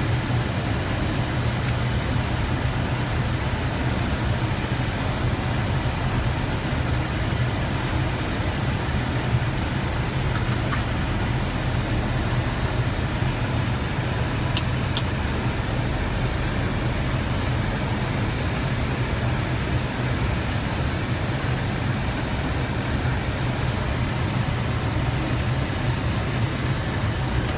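Steady flight-deck noise of an Airbus A319 in flight on approach: an unbroken rush of air with a low hum underneath. Two short, sharp clicks come close together about halfway through.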